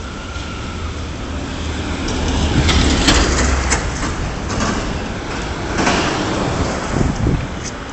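City street traffic noise: a heavy vehicle passing close with a low rumble that swells in the middle, with scattered short clatters.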